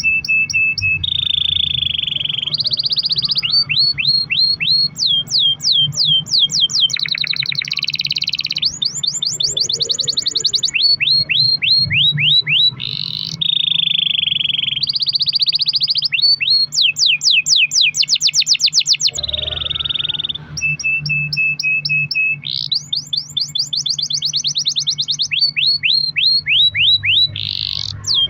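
Domestic canary singing a long, unbroken rolling song: held whistled notes alternate with rapid trills of repeated sweeping notes. A low steady hum runs underneath.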